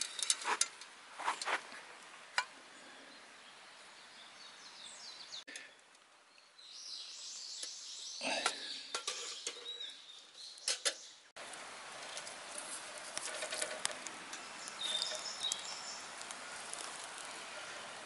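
Clinks and knocks of an aluminium mess tin being handled and set down on a stainless wire grill rack. After a cut about two-thirds through, a wood fire crackles steadily beneath it.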